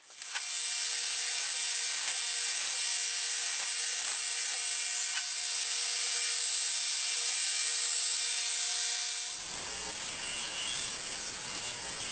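Belt grinder running with a steel blade pressed against its abrasive belt: a steady grinding hiss over a motor hum. About nine seconds in the sound changes, the hum dropping away and a lower rumble coming in.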